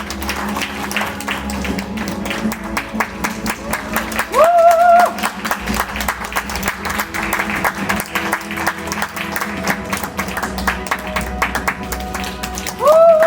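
Audience clapping steadily over background music at a theatre curtain call. A voice rises into a long held call about four seconds in and again near the end.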